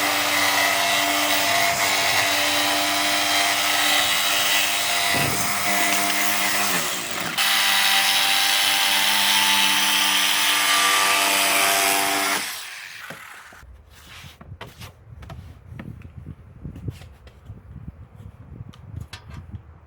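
An electric power tool's motor runs steadily with a whine, its pitch briefly shifting about six seconds in. About twelve seconds in it is switched off and winds down, and light knocks and handling clatter follow.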